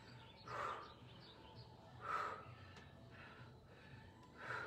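A woman breathing hard with exertion during an exercise: three short, forceful breaths, roughly one every one and a half to two seconds, in time with her repetitions.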